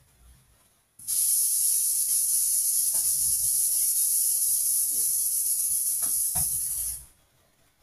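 A steady high-pitched hiss that starts abruptly about a second in and cuts off suddenly about six seconds later.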